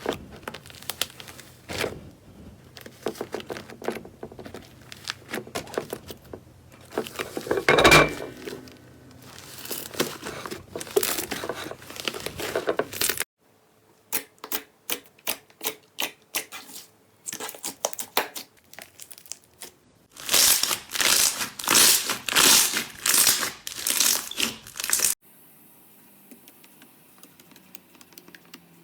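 Slime being squished and poked by hand: dense crackling with sticky pops and clicks, broken by abrupt cuts between clips. In one stretch the clicks come singly, about two a second. The last few seconds are much quieter.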